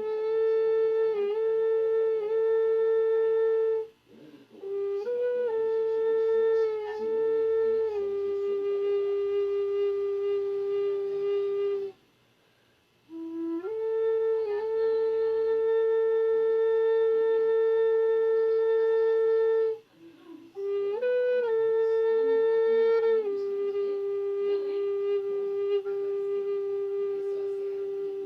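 Native American flute (siyotanka) playing a slow melody in four long phrases. Each phrase opens with quick ornamental flicks and settles into long held notes, with short pauses for breath between phrases.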